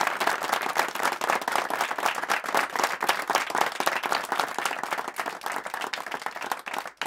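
Audience applauding, many hands clapping at once; the clapping slowly thins and dies away near the end.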